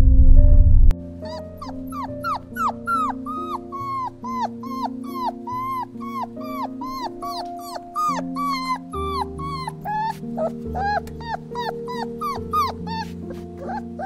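A loud low drone cuts off about a second in. Then a dog yips and whimpers over soft background music: short, high cries that fall in pitch, about two a second.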